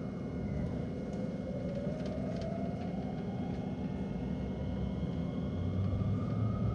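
HK100 diesel railcar pulling away from a station, heard from inside the car: a steady engine rumble with a whine that rises slowly in pitch as the train gathers speed, the low engine note growing stronger near the end.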